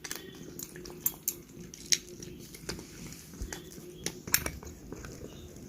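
Cats munching their food: an irregular run of crisp crunching clicks, with a few louder crunches scattered through.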